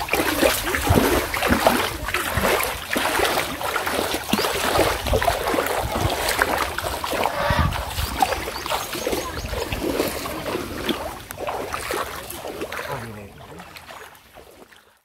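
Repeated, irregular splashing of shallow floodwater as a cast net is worked through it. The sound fades out near the end.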